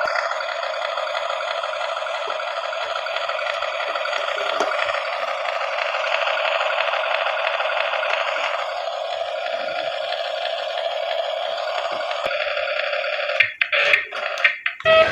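Tinny, steady sound effects from the remote-control city bus's small built-in speaker. The sound breaks up and cuts in and out near the end.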